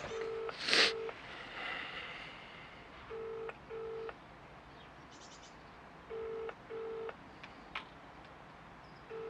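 British double-beat telephone ringing tone heard over a mobile phone's speaker: three pairs of short beeps, about three seconds apart, with a fourth pair starting near the end. The call has connected and is ringing, not yet answered. A brief rustling noise about a second in is the loudest sound.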